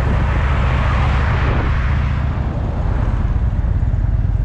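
Harley-Davidson V-twin motorcycle engine idling with a fast, steady low pulse. A rushing noise of passing traffic swells and fades over the first two seconds.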